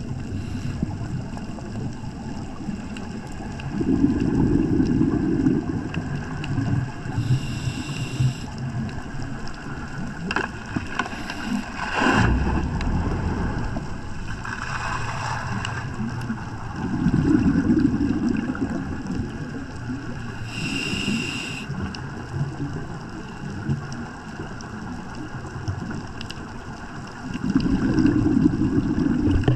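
A scuba diver breathing through a regulator, recorded underwater: three slow breaths, each exhale a rumbling burst of bubbles and each inhale a hiss from the regulator a few seconds after it. A single sharp knock about twelve seconds in.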